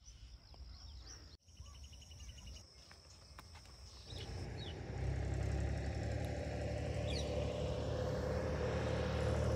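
Faint bird chirps and a short rapid trill over quiet countryside; about four seconds in, a steady low rumble comes up and holds as the loudest sound.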